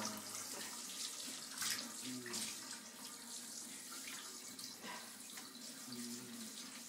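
Handheld shower spraying water over a wet dog in a bathtub: a steady hiss of running water, broken by short splashes.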